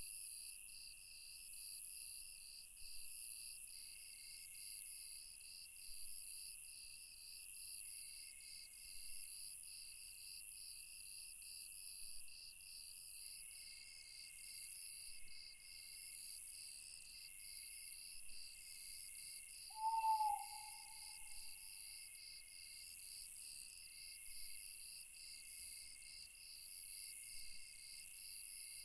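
Night chorus of crickets and other insects: several layers of high, fast-pulsing chirps and trills running steadily. About twenty seconds in, an owl hoots once, a short low call that stands out above the chorus.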